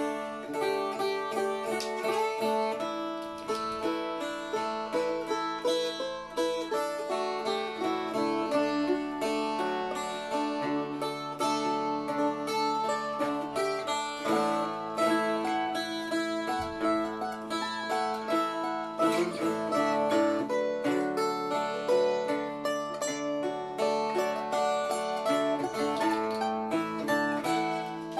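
Instrumental jam on a dulcimer and a bouzouki, both strummed and picked together. A melody moves over a steady held drone note, with an even strumming rhythm throughout.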